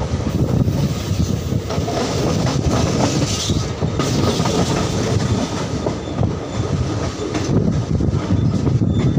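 Passenger train coach running at speed, heard from its open doorway: wheels rumbling and clacking over the rails, with a steady rush of running noise.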